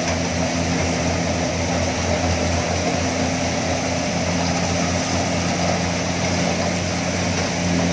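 Kubota MU4501 tractor's diesel engine driving a thresher through its PTO, running steadily under load while crop is fed in. A steady mechanical drone with a low throb that pulses a few times a second over the rushing hiss of the threshing drum and blower.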